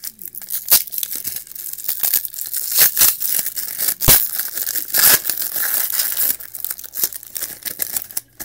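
Plastic wrapper of a 1995-96 Topps basketball retail pack crinkling and tearing as it is handled and opened, with irregular crackles and a few sharper snaps about three, four and five seconds in.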